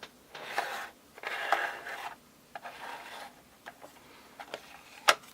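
Hard plastic toy parts scraping and rubbing together as a chair is worked onto its post: two longer scrapes in the first two seconds, then lighter short scrapes and a sharp click near the end.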